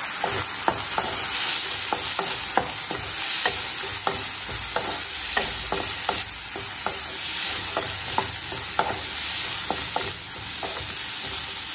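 Chopped vegetables and soaked moong dal sizzling in oil in a non-stick kadai while a spatula stirs them, with irregular clicks and scrapes of the spatula against the pan over a steady hiss.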